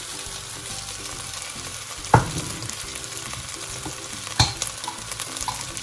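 Minced meat with onion and garlic sizzling in an aluminium pot, frying in its own fat with barely a drop of oil, while a wooden spoon stirs it. The spoon knocks sharply against the pot twice, the louder knock about two seconds in.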